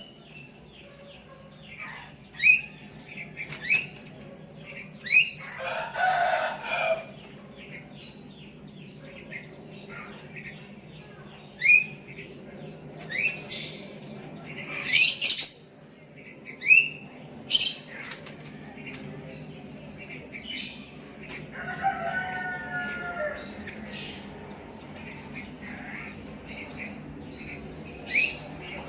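Sooty-headed bulbuls calling back and forth: short, sharp chirping notes repeated every second or so, one bird answering another. Twice, about six and twenty-two seconds in, a longer, lower call with layered tones sounds under them.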